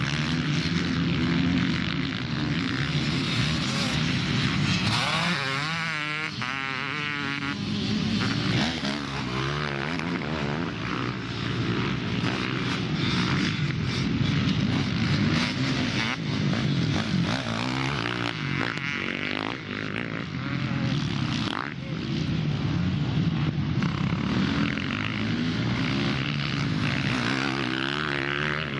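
Motocross bikes racing, their engines revving hard and dropping off again, the notes of several bikes overlapping, with the pitch sweeping up and down as riders pass.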